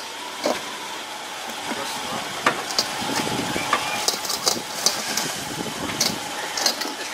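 A car engine idling steadily, with scattered light knocks and scuffs as a loose tyre is shoved into place on concrete against the car's front wheel.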